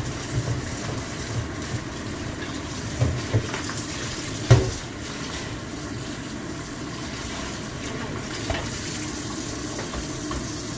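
Kitchen tap running into a black air fryer basket in a stainless steel sink as it is scrubbed with a sponge, a steady rush of water. A few knocks come through, the loudest about four and a half seconds in.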